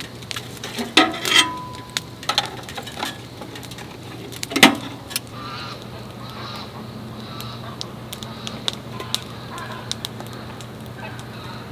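Firewood crackling in a small wood-burning tent stove, with irregular sharp pops. About a second in there are a couple of squeaky metallic scrapes, and a little before the middle a single loud clank with a squeal, from metal fire tongs working the logs against the stove.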